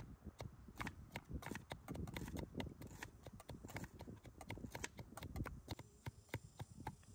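Irregular series of light, sharp knocks and taps, several a second.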